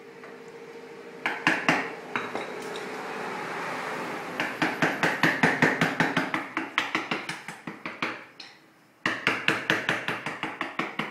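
Rapid series of sharp knocks or clacks, about six a second, stopping briefly about eight seconds in and then starting again.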